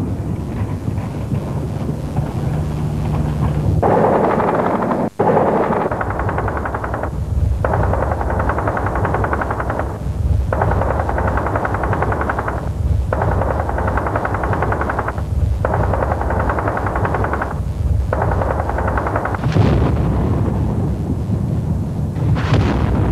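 Automatic gunfire in long bursts of rapid shots, several in a row, each two to three seconds long with short breaks between. Near the end come two sharp bangs.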